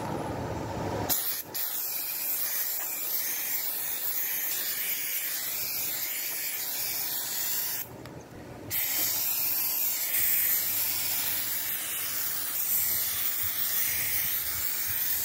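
Aerosol can of spray adhesive hissing in long, steady sprays, with a short stop about a second in and a pause of about a second near the middle.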